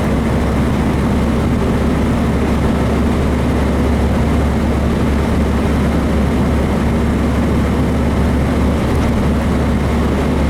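Inside the cabin of a 1966 VW Beetle, its freshly built 1776 cc air-cooled flat-four engine running steadily under way with road noise, a constant low drone with no change in revs.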